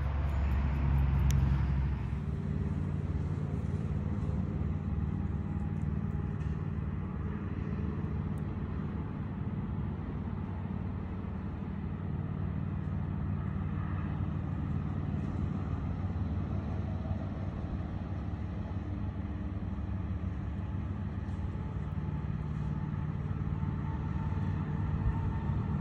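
Steady low engine rumble, as of motor traffic, running on without a break, a little louder in the first two seconds.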